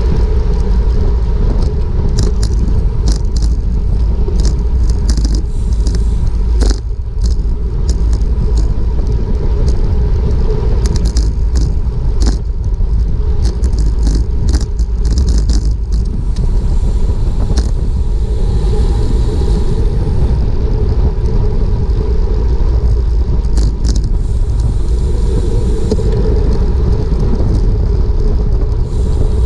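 Wind buffeting the microphone of a GoPro on a racing bicycle at speed: a loud, steady rumble, with scattered sharp clicks and ticks.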